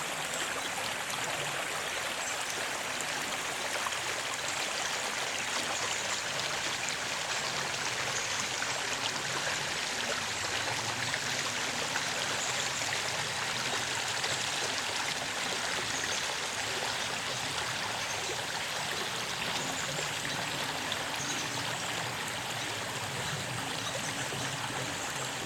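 Steady rushing of a flowing stream, an even, unbroken wash of water noise.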